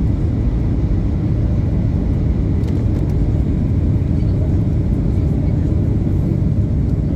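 Airliner cabin noise: a steady, even low rumble.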